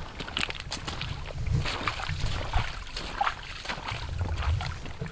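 Footsteps and rustling of clothing and gear from people walking while carrying heavy loads, as irregular crunching steps over a steady low rumble on the microphone.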